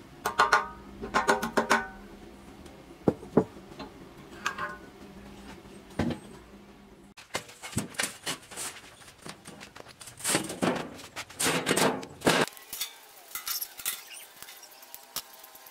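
Steel parts and a steel plate being handled: sharp metal clinks and knocks with a short ring in the first half, then rasping scrapes of metal dragged over metal and a few more clicks.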